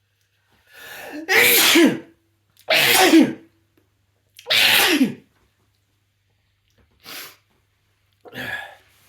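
A person sneezing three times in a row, about a second and a half apart, after a short build-up breath, each sneeze ending in a falling cry: a sneezing fit set off by sniffed chhinkni snuff. Two shorter, quieter sounds follow near the end.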